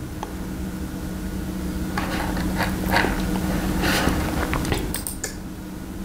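Small extractor fan running slowly at its lowest speed, fed through a series capacitor from a relay channel, with a steady low hum. A few light clicks come in the middle.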